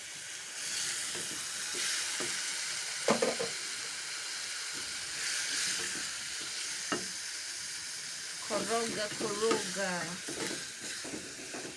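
Chopped vegetables (bell pepper and carrots) frying and sizzling in a pot with a steady hiss while being stirred with a spoon, with a couple of knocks of the spoon against the pot.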